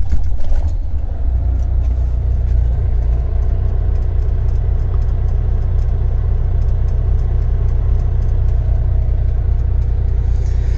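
Volvo D13 inline-six diesel truck engine just started, a little louder for about the first second, then settling into a steady idle, heard from inside the cab.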